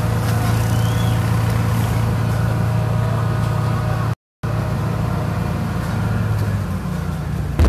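Steady low hum of a fire truck's engine running at idle. The sound cuts out for a moment just past halfway, and a low thump comes at the very end.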